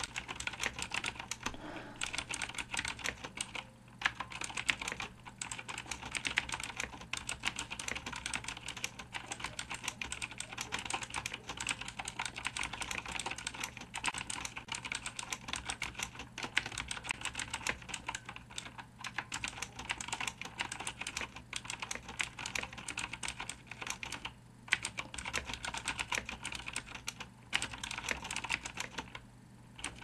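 Fast touch-typing, about 60 words a minute, on a 1992 Chicony 5191 keyboard with vintage Cherry MX Blue clicky switches and thin ABS keycaps: a dense, continuous clatter of sharp keystroke clicks, broken by a few short pauses.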